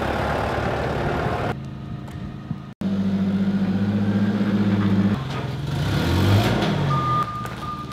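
Engines of a Kubota tractor and a Doosan G30E forklift running, with the engine note rising and falling about six seconds in. Near the end, a reversing alarm starts beeping in a steady repeating pattern.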